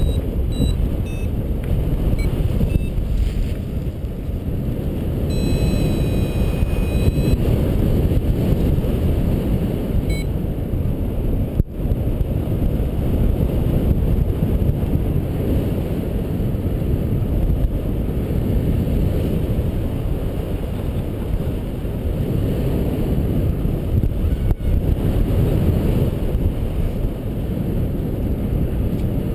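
Airflow buffeting the microphone of a camera on a paraglider in flight: a steady low rumble. A variometer gives a few short high beeps near the start and holds a tone for about two seconds around six seconds in.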